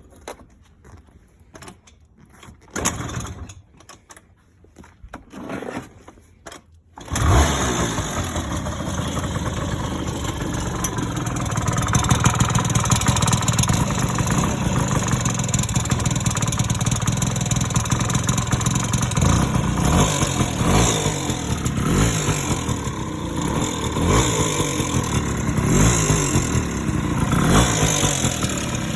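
Honda Lead 90 scooter's two-stroke single-cylinder engine: a few short bursts of noise, then it starts about seven seconds in and runs, with repeated revs rising and falling in the second half. The owner says it makes a strange noise when put under load.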